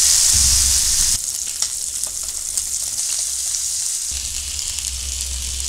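Sirloin steak searing in fat in a frying pan: a steady sizzle with scattered crackles and pops, louder for about the first second and then settling to a lower level.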